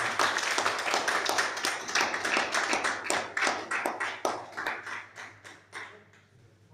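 A small group of people applauding, the clapping thinning out and dying away about six seconds in.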